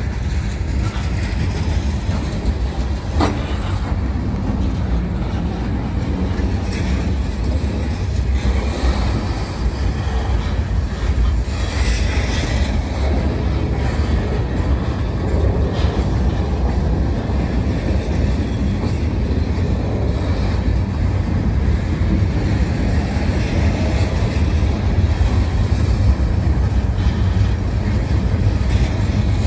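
Freight train of open-top gondola cars rolling past: a steady low rumble of steel wheels on the rails, with a few sharp clicks as wheels cross rail joints.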